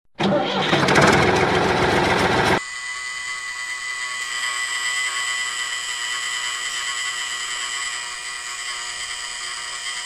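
Small electric gear motors of a home-made wooden toy tractor running. A loud, rough burst for the first two and a half seconds is followed by a steady, quieter high whine.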